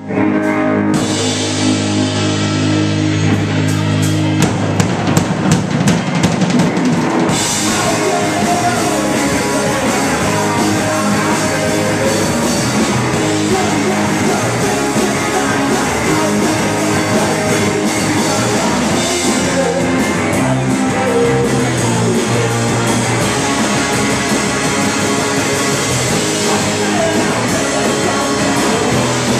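A live rock band playing electric guitars, bass guitar and a drum kit. It opens on held guitar and bass notes; a rapid drum fill enters about four seconds in, and the full band with cymbals kicks in at about seven seconds.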